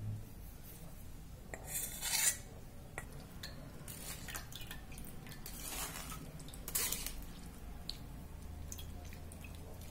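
Kitchen utensils clinking and scraping against dishes: a few separate clatters and scrapes with short clicks between them.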